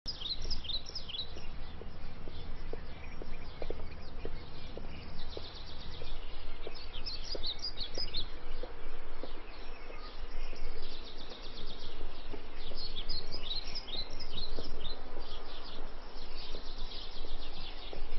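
Several small birds chirping in quick runs of short, high calls, over a steady low background rumble.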